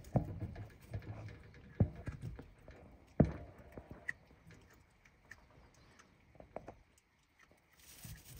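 A fox gnawing and crunching a treat with its teeth: three sharp cracks in the first three and a half seconds, then fainter scattered clicks.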